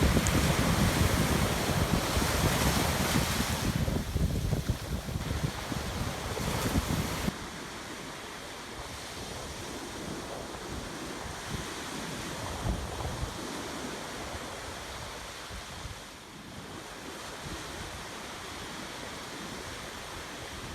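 Ocean surf washing onto a sandy beach, with wind buffeting the microphone. About seven seconds in the low wind rumble drops off suddenly, leaving a quieter, steady wash of waves.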